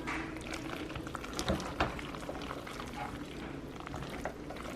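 Cheese sauce being stirred in a pot: wet, sticky liquid sounds with scattered light clicks and taps of the utensil against the pot.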